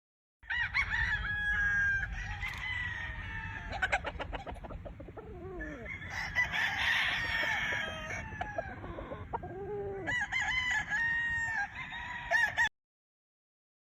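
Chickens clucking and roosters crowing, several calls overlapping, over a low steady rumble. The sound starts about half a second in and cuts off abruptly near the end.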